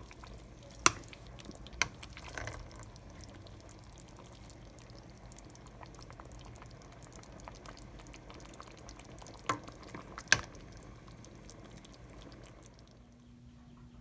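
A plastic ladle stirring noodle soup in a pot: soft sloshing of liquid, with sharp knocks of the ladle against the pot, two in the first two seconds and two more around ten seconds in.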